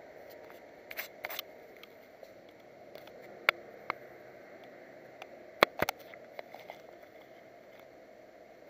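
Handling noise on a small camera's microphone: a handful of sharp clicks and knocks with some rubbing, the loudest about halfway through, over a steady hiss, as the dash camera is moved and set in place.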